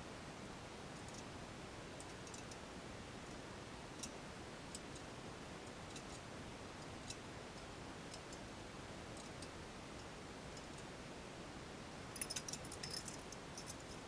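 Scattered light clicks over a steady hiss, then a brief burst of metallic clinking and jingling near the end: bike rack parts, hardware and tools being handled during assembly.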